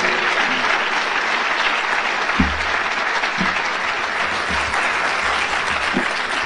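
Audience applauding steadily, thinning out near the end, with a few dull low thumps underneath.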